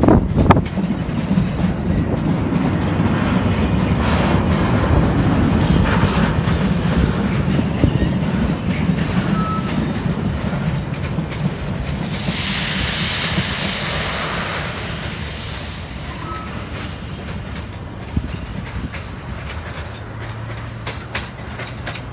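Container freight train's flat wagons rolling past and away over points, wheels clattering and rumbling, fading steadily as the train recedes. A brief hissing rush comes about halfway through.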